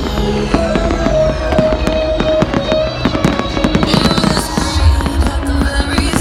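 Fireworks cracking and popping in rapid succession over loud electronic dance music with a heavy bass line from a festival sound system.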